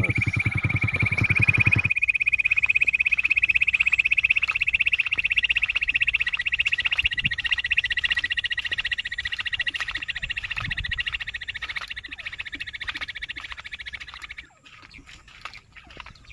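A fast, high-pitched pulsing trill that rises slowly in pitch and fades, then stops abruptly about 14 seconds in. A lower pulsing sound under it stops about 2 seconds in.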